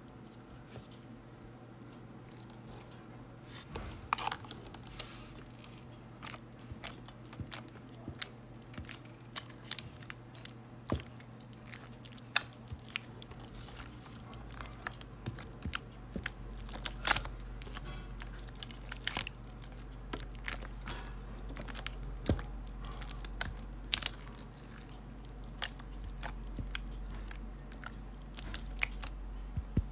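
Thick green slime being squished and poked by hand, giving many short, sharp, irregular clicks and pops, sparse at first and coming thicker after the first few seconds.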